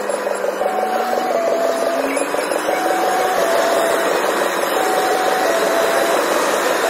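Car engine and tyre noise heard from inside the cabin while driving through a road tunnel, a steady rushing sound with the engine note rising slowly as the car accelerates.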